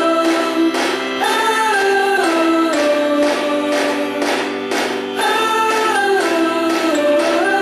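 A background song with singing over instruments: long held sung notes that slide between pitches.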